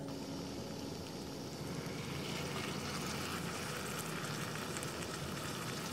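Canned sardines in tomato sauce sizzling in a hot frying pan, a steady hiss that grows louder about two seconds in as the sardines go in.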